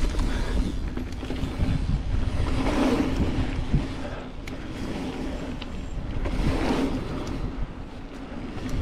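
Mountain bike running fast down a bumpy dirt trail: wind rumble on the microphone over tyre and drivetrain rattle, rising and falling twice with a few sharp knocks.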